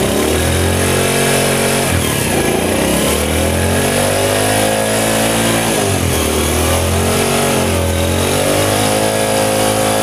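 Honda CD70's small single-cylinder four-stroke engine running in gear with the rear wheel spinning, revved up and down about four times. Its clutch box has just been rebuilt, and it runs mostly clean with only a slight drone left.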